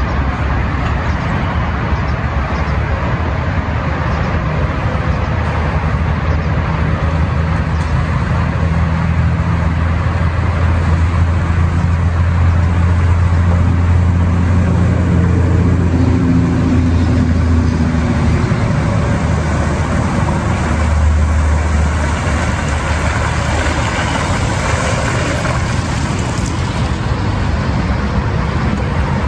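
Jeep Wrangler engine running as it drives through a muddy, puddled trail. It grows louder as it approaches and is loudest around the middle, with a brief rise in engine pitch.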